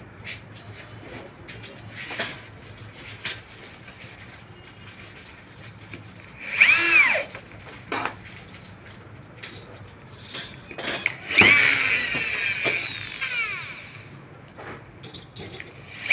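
Handheld corded electric drill drilling into a wooden board. The motor spins up and winds down on the trigger twice: a short burst about six seconds in, then a longer run of about two seconds. Light knocks and taps come in between.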